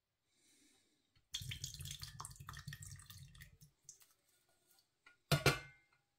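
Thin, watery cheese sauce and macaroni pouring and plopping out of a tin into a stainless steel saucepan for about two seconds. Near the end comes a single sharp metallic knock with a brief ring as the tin is knocked against the pan.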